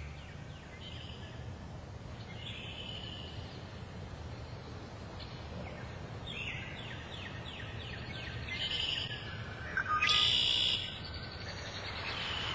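Songbirds chirping and calling over a low, steady background rumble of outdoor ambience. A quick run of repeated notes comes about six and a half seconds in, and the loudest call about ten seconds in.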